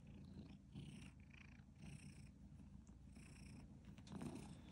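Domestic cat purring softly while it is stroked, with faint rustles of a hand brushing over its fur about once a second.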